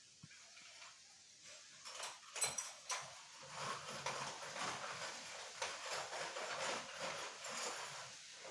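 Metal objects being handled: a few sharp metallic clinks about two seconds in, then irregular scraping and rustling.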